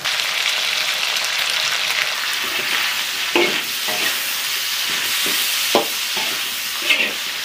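Diced cured pork sizzling steadily in a cast-iron wok over a wood fire as it is stir-fried, with a few short knocks of the stirring utensil against the wok.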